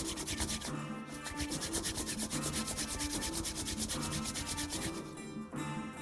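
Background music with a fast, even, scratchy pulse of about ten beats a second over short low bass notes.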